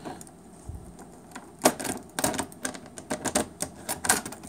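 A ring of keys jangling and clicking against the metal front lock of an AccuVote ballot tabulator as a key is worked in it to unlock the front: a string of irregular sharp clicks, the loudest about a second and a half in.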